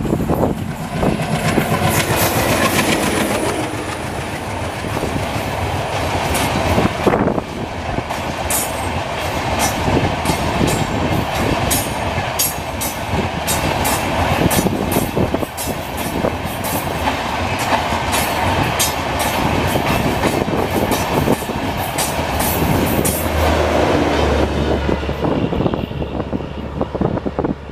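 WDG-3A diesel locomotive's engine passing, then a long rake of LHB coaches rumbling by with a steady run of wheel clicks over the rail joints. The sound fades as the last coach draws away near the end.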